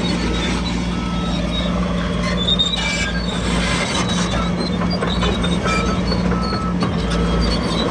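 Crawler bulldozer's diesel engine running steadily while its steel tracks give off short, high-pitched metallic squeals.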